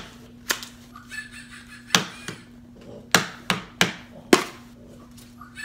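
A series of sharp, separate knocks or taps, about seven in all, coming irregularly with some in quick pairs, over a faint steady hum.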